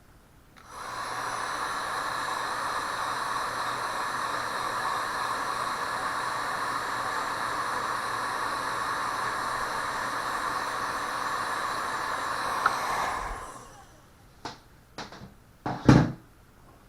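Heat gun blowing steadily, an even fan hiss with a faint steady whine, used to shrink heat-shrink tubing over a soldered connector wire. It switches off suddenly, and a few knocks and clicks of handling follow near the end, the last one the loudest.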